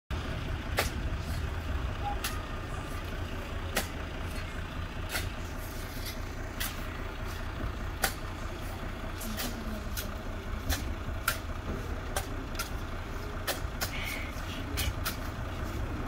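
Metal shovels scraping and digging into sand in a truck's steel bed, a sharp irregular scrape or clink about every half second to second, over a steady low rumble.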